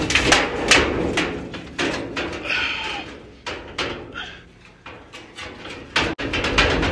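The old rusty sheet-steel panel of a 1958 Dodge Power Wagon cab being wrenched out by hand after being cut free around a welded-in patch panel: a quick run of clattering metal knocks, rattles and scrapes.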